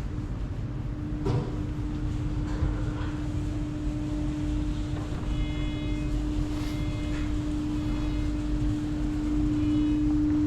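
Steady machine hum over a low rumble; the hum sets in about a second in and holds, with a few faint high tones in the middle.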